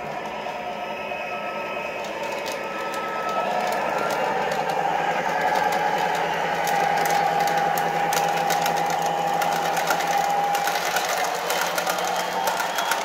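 MTH O-scale diesel locomotive and its freight cars rolling across a Lionel truss bridge: a running motor whine with many quick clicks of wheels over the track, growing louder about four seconds in as the train reaches the bridge.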